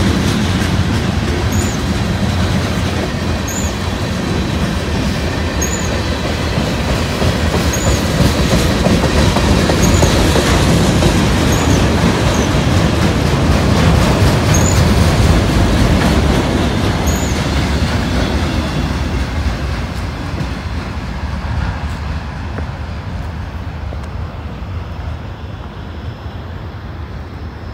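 A long freight train's cars rolling past, steel wheels clattering over the rails. The noise fades over the last third as the end of the train passes and moves away.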